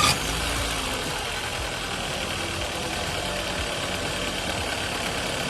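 2000 Nissan Altima's 2.4-litre four-cylinder engine idling steadily just after starting on the first turn of the key, heard from the open engine bay.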